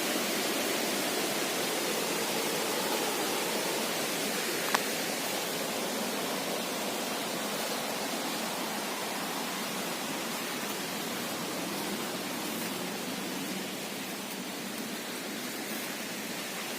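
Steady rush of fast-flowing water from a rain-swollen river below a waterfall, with a single faint click about five seconds in.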